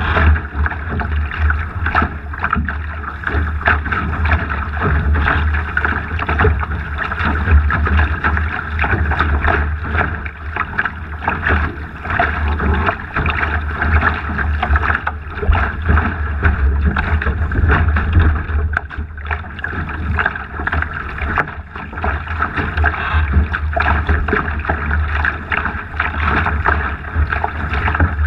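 Water rushing and splashing along the hull of a Laser sailing dinghy under way, with wind buffeting the microphone in a steady low rumble.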